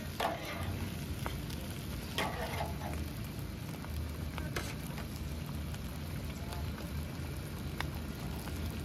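Pork carnitas sizzling on a flat steel cooking tray, a steady crackling hiss, with a few short metal spatula scrapes and clicks, the loudest right at the start and about two seconds in.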